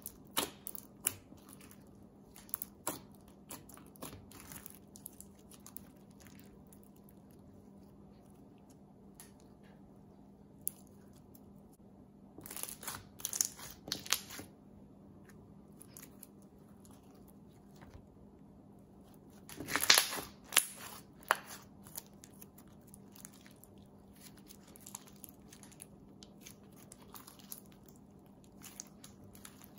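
Clear beaded slime being poked, squeezed and stretched by hand: scattered sticky clicks and small pops, with two busier runs of crackling pops about twelve and twenty seconds in.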